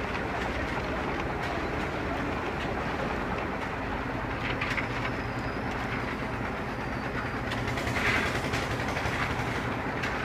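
Heavy machinery engine running steadily with a constant low hum, with a couple of brief louder scrapes or clatters over it.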